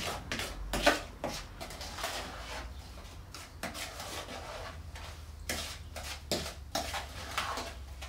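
Fine sand being worked into wet Portland cement paste in a container: a tool scraping and stirring in irregular strokes, with a few sharper knocks, the loudest about a second in.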